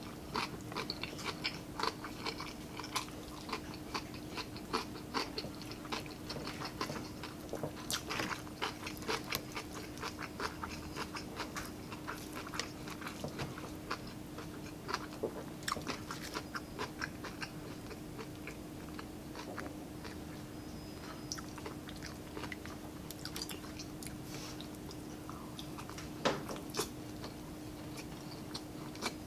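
Chewing and biting crispy breaded fried pork (pork pinaputok), with many short crunchy clicks throughout. A faint steady hum runs underneath.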